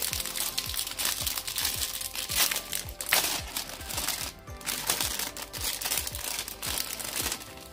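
Clear plastic bag crinkling as a bagged plastic model-kit runner is handled and turned over, with background music playing underneath.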